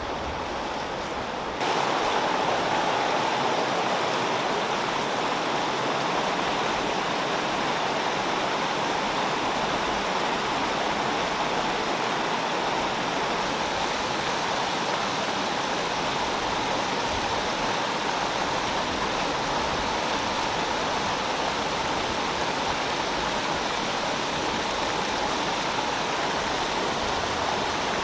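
A shallow river rushing steadily, with water spilling over a low barrier of rocks and black plastic sheeting. The rushing jumps louder suddenly about a second and a half in, then holds steady.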